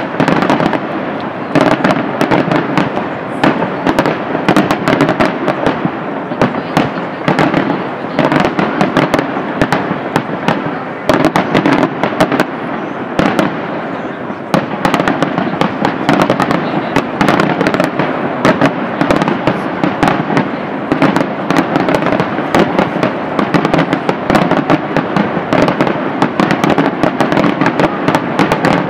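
Aerial fireworks display: shells bursting in a dense, unbroken barrage of bangs, several a second and overlapping.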